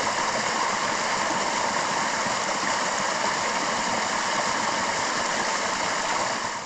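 Small woodland waterfall: stream water splashing down over rock ledges in a steady rush, fading out near the end.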